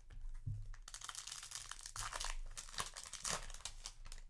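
Foil wrapper of a Yu-Gi-Oh! booster pack crinkling as it is handled and torn open, a dense crackle starting about a second in and lasting about three seconds.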